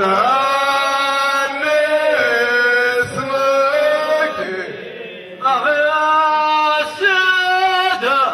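Ahwach chorus of men chanting a drawn-out phrase together, with long held notes that bend in pitch. The chant comes in two phrases, with a short lull about five seconds in.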